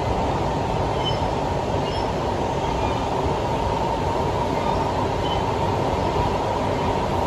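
Interior running noise of a 1995 Siemens C651 MRT train: a steady, even rumble of wheels and running gear, with no rising or falling motor pitch.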